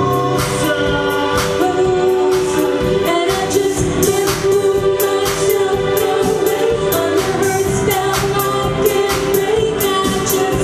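A live band playing a song, with a sung melody of long held notes over steady drum and cymbal hits.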